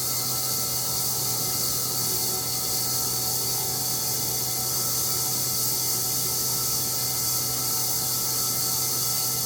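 EGO HPW3200-series cordless pressure washer running steadily on its high setting: the electric motor and pump hum under the hiss of the water jet from a 40-degree nozzle.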